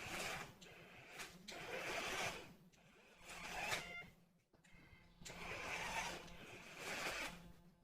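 Toy RC car's small electric motors whirring in short bursts as it is driven back and forth, with a brief high tone a little under four seconds in.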